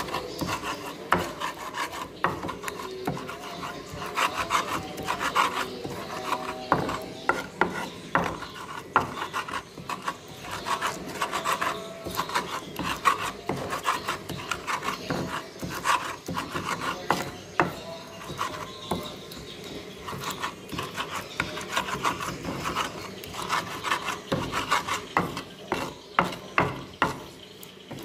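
Stone pestle grinding chili paste in a clay mortar (Indonesian ulekan and cobek): fast, irregular scraping and rubbing strokes of stone against clay, one after another.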